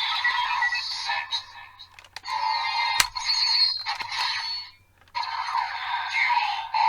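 Kamen Rider Geats DX Desire Driver toy belt with the Shield Raise Buckle, playing its electronic jingle and announcer voice through its small, tinny speaker. A sharp plastic click comes about three seconds in, and the sound breaks off briefly near five seconds before starting again.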